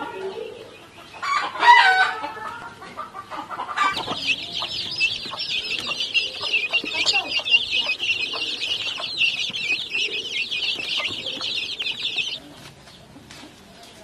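Chickens clucking, with one louder chicken call about a second and a half in, then a crowd of young chicks peeping rapidly and without a break for about eight seconds before the peeping cuts off.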